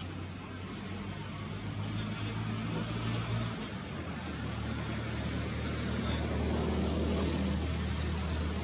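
Steady low engine hum from a running motor, with a soft hiss over it; its pitch drops slightly about three and a half seconds in.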